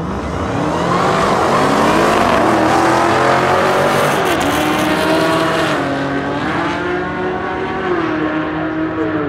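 Two drag cars launching off the start line at full throttle and pulling away down the track. The engine pitch climbs through each gear and drops back at each upshift, and the sound eases slightly as the cars recede.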